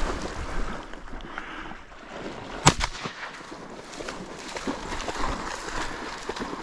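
A single sharp shotgun shot about two and a half seconds in, over steady sloshing of water and rustling in the marsh.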